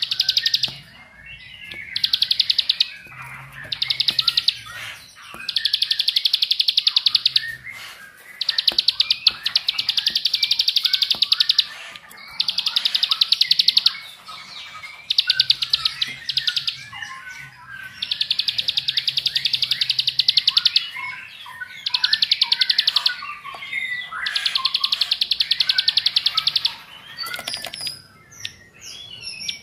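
Plain prinia (ciblek sawah) singing its fast 'ngebren' song: about a dozen bouts of a rapid, buzzing trill, each from half a second to about three seconds long, with short chirps in between.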